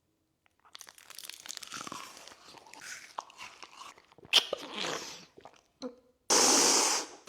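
Close-miked crunching and chewing of crisp food, with a sharp crack about halfway through. It is followed near the end by a loud, hissing burst lasting about a second.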